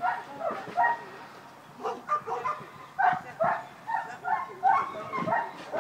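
German Shepherd barking in a quick run of short, high-pitched barks and yips, worked up as it strains toward a helper's bite pillow in bitework training.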